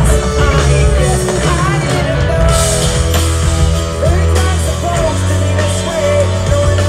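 Live rock band playing: electric guitars, bass, drums and keyboards, loud and dense, with a gliding melody line over a steady low end.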